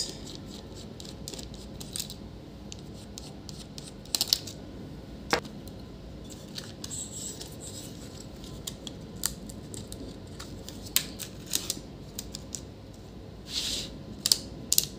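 Scattered small clicks, taps and scrapes of a screwdriver and hands working inside an open laptop: the hard-drive bracket screws being undone and the hard drive being lifted out. There are a few louder scrapes about four seconds in and near the end.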